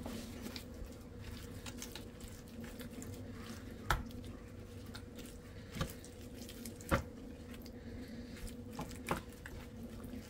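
Faint wet squishing and clicking of chicken drumsticks being rubbed with a spice marinade by hand, with sharper knocks about four, seven and nine seconds in. A steady low hum runs underneath.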